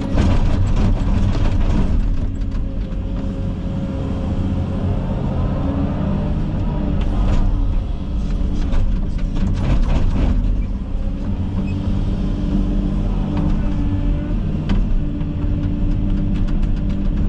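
Komatsu 360 excavator's diesel engine running steadily under working load, with several sharp cracks and crashes near the start and again around the middle as brush and wood are broken and pushed.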